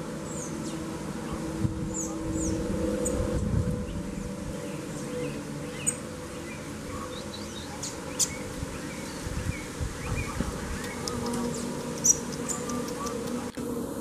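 Insects buzzing steadily, with short high chirps of small birds scattered through.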